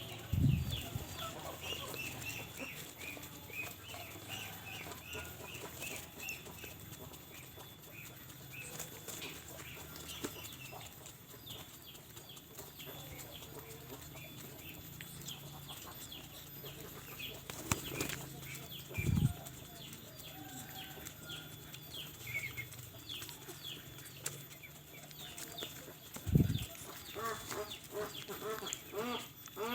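Pigeons flapping their wings in three short bursts, with rapid, high, falling bird chirps throughout and a few lower calls near the end.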